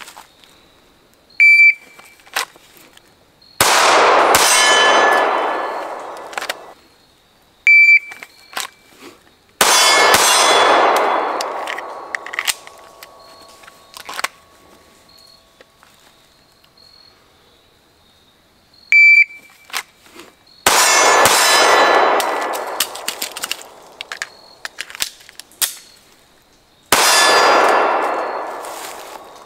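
Four shots from a 9mm Sig Sauer P365 pistol, each a sudden crack followed by a long ringing decay of two to three seconds. Three sharp, high electronic beeps from a shot timer start the draws, each about two seconds before a shot.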